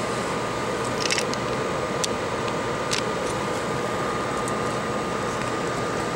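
Steady hiss of a workbench fan with a faint constant tone, and a few faint light clicks as an iPhone's screen flex cable is handled and lined up on its board connector.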